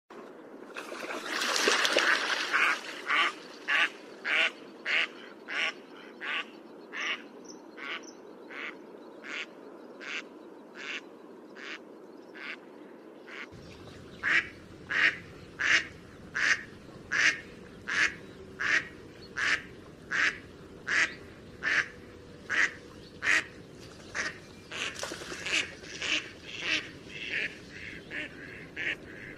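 Domestic ducks quacking: a flurry of overlapping quacks about two seconds in, then single quacks in a steady series about twice a second, crowding together again near the end.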